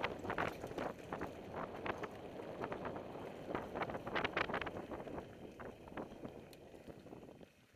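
Mountain bikes rolling down a rocky dirt singletrack: tyres on dirt and stones with frequent sharp rattles and clatters from the bikes, over wind noise on the microphone. The clatter thins and the sound dies down near the end as the riding slows.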